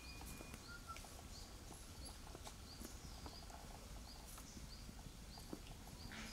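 Faint outdoor ambience: scattered soft clicks and knocks, with a faint high chirp repeating every half second or so.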